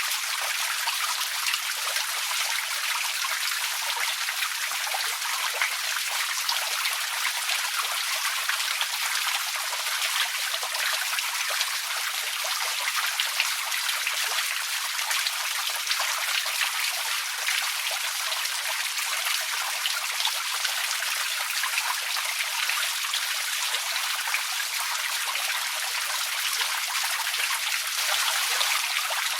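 Outdoor water fountain splashing steadily: falling water makes an even, high hiss that never changes, with no deep rumble under it.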